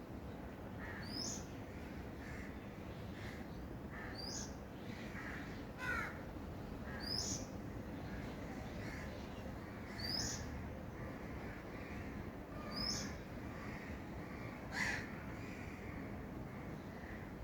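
Wild birds calling: a short high chirp that sweeps upward, repeated about every three seconds, and two louder calls falling in pitch, about six seconds in and near the end, over a steady low background noise.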